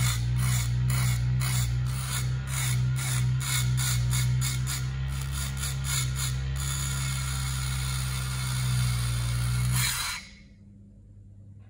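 Small DC-motor mini grinder running with a steady low hum while a thin metal strip is pressed against its spinning cutting disc, giving rapid repeated scraping strokes that quicken as it goes. The motor sound cuts off suddenly about ten seconds in.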